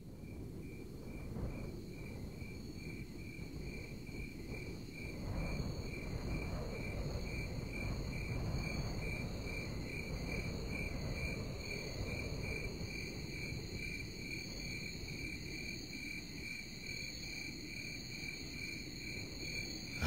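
Night ambience of crickets: a high chirp repeating evenly about two to three times a second over a continuous higher insect trill, with a low steady rumble underneath. It fades in at the start.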